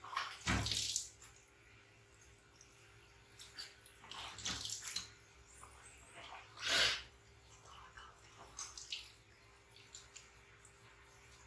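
Water splashing and pouring from a plastic basin over a baby monkey being bathed, in several short splashes: about a second in, around four to five seconds in, loudest about seven seconds in, and a smaller one near nine seconds.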